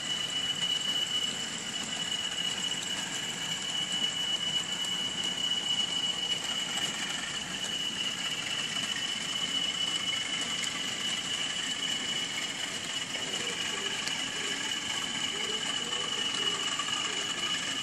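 Model railway goods train of four-wheel wagons rolling steadily past on the track, a continuous running rattle with a constant high whine over it.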